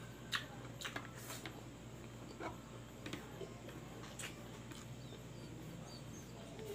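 Close-up eating sounds: chewing pig intestine kilawin, with short wet mouth clicks and smacks coming irregularly about once a second over a low steady hum.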